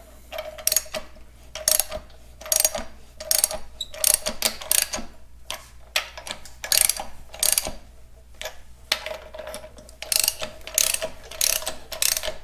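Ratchet wrench and socket tightening the bolts of a tractor's brake cover, the pawl clicking in short runs as the handle swings back and forth, a run every second or so with a faint ring under the clicks.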